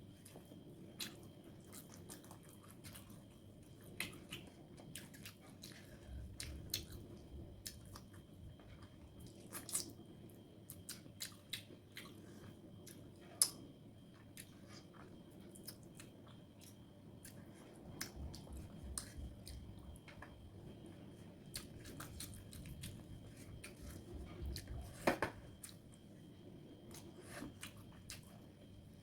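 Close-miked chewing of pepper chicken: soft, wet mouth sounds broken by many short, sharp clicks, the loudest about 13 seconds in and another about 25 seconds in.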